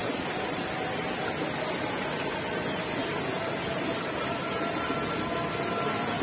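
Steady hiss of shallow stream water running over stones, with a faint steady whine joining about two-thirds of the way in.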